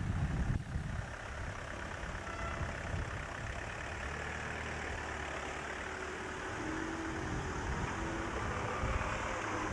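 Cars driving slowly past one after another, their engines running at low revs with a steady low sound.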